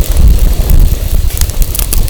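Wind buffeting the microphone in a loud, gusting low rumble, over a wood fire burning in a fire pit, its firewood giving scattered sharp crackles and pops, several in quick succession in the second half.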